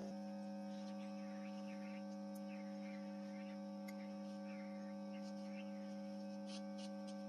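Homemade hot air rework gun blowing steadily with a constant hum as it heats a chip on a circuit board to desolder it. A few light ticks near the end.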